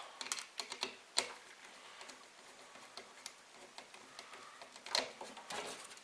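Faint, scattered clicks and light taps of a screwdriver and wire against the screw terminals and plastic body of a GFCI outlet as a wire is fitted and its terminal screw turned. There are a few quick clicks in the first second and another short cluster about five seconds in.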